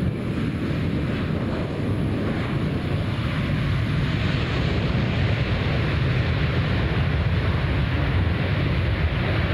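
Jet airliner engines at takeoff thrust, a steady deep noise that grows gradually louder, with wind buffeting the microphone.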